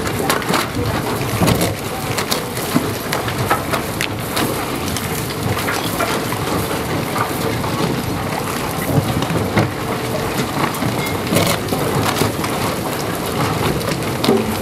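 Herrenknecht tunnel boring machine grinding through the rock behind a shotcrete wall: a steady rumble with many small cracks and clatters as the sprayed concrete crumbles and pieces fall away, signalling the imminent breakthrough.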